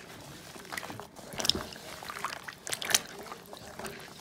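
Water sloshing, with irregular small clatters and two sharper knocks about a second and a half in and again near three seconds.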